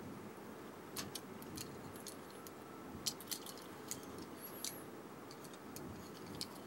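Small irregular clicks and taps of a die-cast toy fire truck being handled and turned in the fingers, over steady low background noise.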